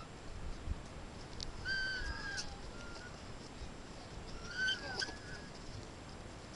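Young emus giving two short chirping whistles, one about two seconds in and one near five seconds, with a few sharp clicks between them.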